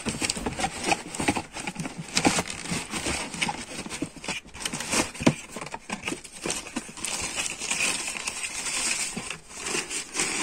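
Tissue paper rustling and crinkling and a cardboard shoe box being handled, as a sandal is packed back into the box and the lid is closed, with irregular small taps and scrapes throughout.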